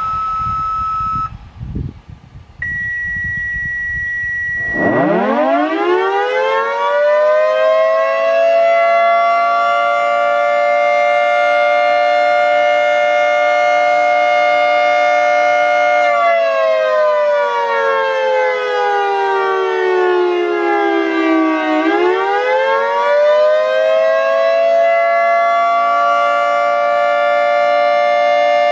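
Two long steady tones, the second higher than the first. Then a Federal Signal 2T22 dual-tone outdoor warning siren winds up quickly about five seconds in and holds a steady two-note chord. It slides down in pitch for several seconds, then winds back up to full pitch near the end.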